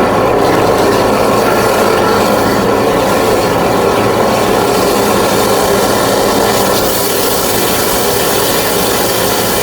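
High-pressure drain jetter running steadily: an engine-driven pump's even drone under a loud, rough rushing noise, as it jets out a partly blocked drain pipe.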